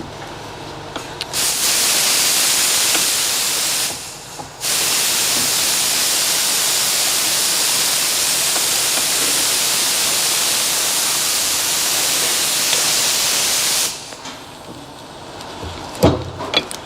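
Aerosol brake cleaner spraying in two long hissing blasts, a short break between them, then a few sharp metallic knocks near the end.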